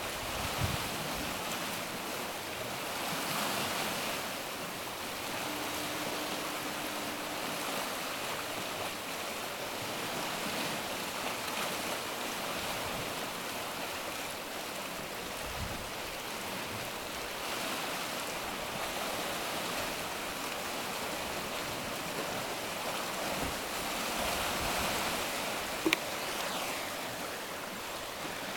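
Steady wash of sea surf on a rocky shore, swelling and easing slowly. A faint steady tone sounds for about two seconds about six seconds in, and a sharp click comes near the end.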